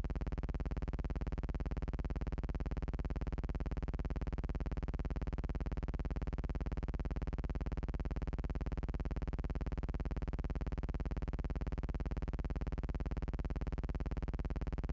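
A steady, unchanging buzzing hum with many evenly spaced overtones, the same throughout.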